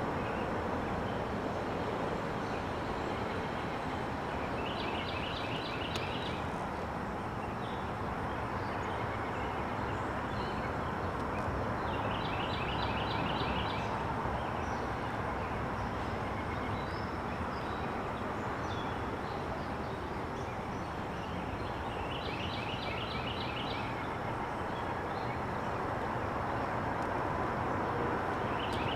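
A songbird repeats a short, high trill of quick notes about every seven seconds, four times, over a steady background hum of outdoor noise.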